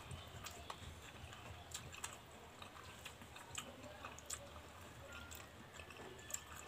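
Faint eating sounds from two people eating rice by hand off plates: scattered small irregular clicks and soft chewing.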